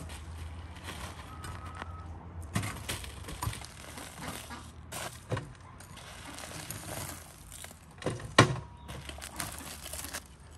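Cleaver blade knocking and chopping into a hard baked salt crust, with crunching as chunks of the crust crumble off and foil crinkling underneath. Several sharp knocks, the loudest about eight seconds in.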